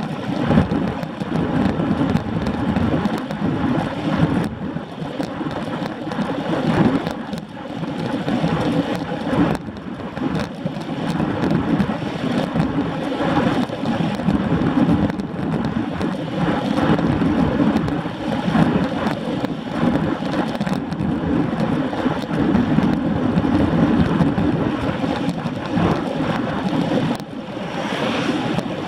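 Wind rushing over a bike-mounted camera's microphone, mixed with road-bike tyres rolling on asphalt at about 21 mph: a steady, uneven rumbling noise with occasional sharp clicks.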